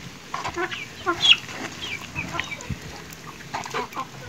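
Chickens clucking in short, scattered calls, mixed with a few soft clicks from fish being handled in a plastic tub.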